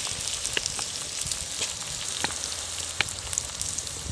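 Onion, capsicum and ginger-garlic sizzling in hot oil in a clay pot after tomato sauce has gone in, a steady frying hiss with a few sharp pops.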